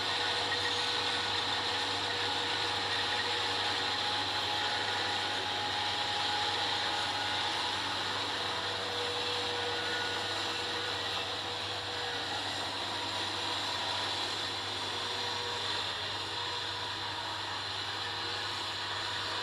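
Kubota rice-harvesting machinery running steadily: a dense, unbroken mechanical din with a steady low hum and a few held tones.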